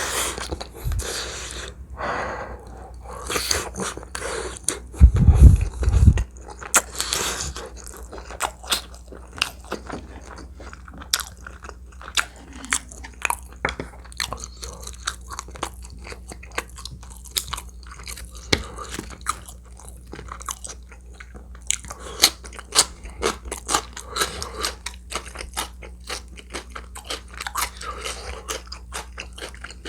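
Close-miked eating sounds: chewing, biting and wet mouth clicks, steady and dense. About five seconds in comes a short cluster of louder, deeper sounds.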